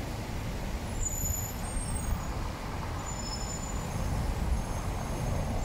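Street noise: a strong wind rumbling on the microphone over passing traffic, with fountain water splashing.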